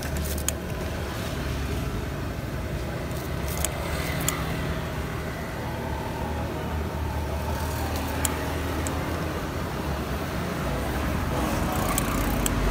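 Steady low rumble of motor traffic, with a few sharp metallic clicks of scissors snipping fried batagor pieces; a vehicle's rumble grows louder near the end.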